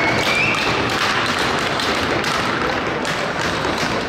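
Ice hockey play in an arena: irregular knocks and taps of sticks and puck over a steady wash of skating and crowd noise, with a brief high rising tone near the start.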